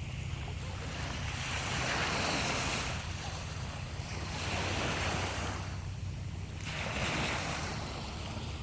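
Sea waves washing onto the shore, with three surges of hiss a couple of seconds apart, over a steady low rumble of wind on the microphone.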